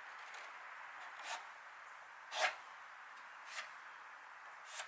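Four short scratchy strokes about a second apart, the kind a felt-tip marker makes when marking hole positions on a surface.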